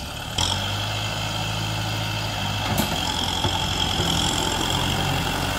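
Kubota M6040SU tractor's diesel engine running steadily under load as its front blade pushes into a pile of dirt. The engine gets louder about half a second in, and there is a single sharp knock near the middle.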